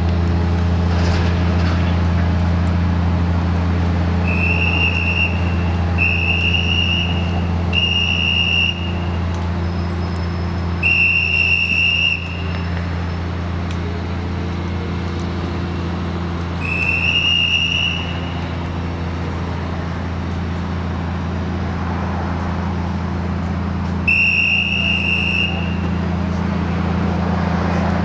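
Liebherr LTM 1500 mobile crane's diesel engine running with a steady low drone during a lift. Six separate high whistle-like tones, each about a second long, sound at irregular intervals over it.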